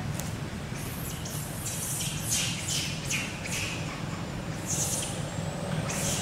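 A run of short, hissy animal squawks, about ten in quick succession over the first few seconds, then a pause and two more near the end, over a steady low rumble.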